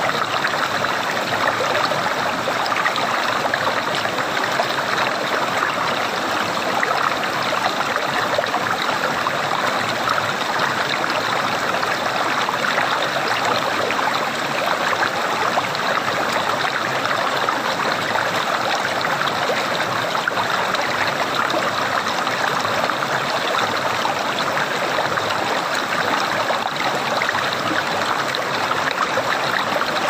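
Shallow rocky stream running over and between stones, an even, steady rush of water.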